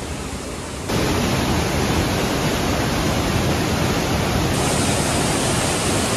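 Waterfall (Johnston Canyon's lower falls) pouring into its plunge pool: a steady rush of water that gets louder about a second in.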